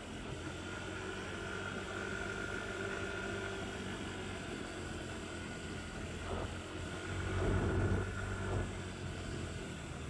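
Motorcycle engine running steadily while riding, with wind hiss on the microphone; the sound swells louder about seven to eight seconds in.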